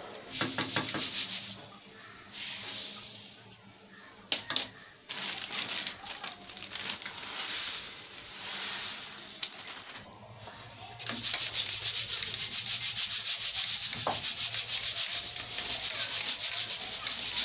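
A wooden spatula stirring and scraping thick jaggery syrup in an aluminium pot, in short bursts. From about eleven seconds in, puffed rice shaken back and forth in a sieve: a fast, even, loud rustling.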